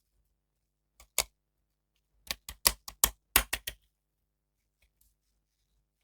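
Sharp clicks and taps from handling an action figure and its packaging: two about a second in, then a quick run of about eight between two and four seconds in.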